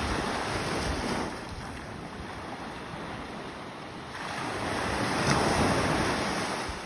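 Sea waves washing onto the beach, with wind buffeting the microphone; the wash swells about four seconds in and dies down near the end.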